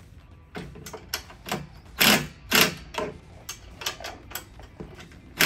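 Ratchet wrench tightening a bolt: short bursts of ratcheting clicks, one with each swing of the handle, about two a second and uneven, loudest about two seconds in and again at the end.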